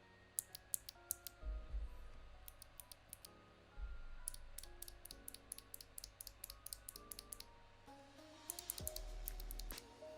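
Typing on a mechanical keyboard with Kailh Box White clicky switches: runs of sharp clicks in several bursts, over background music.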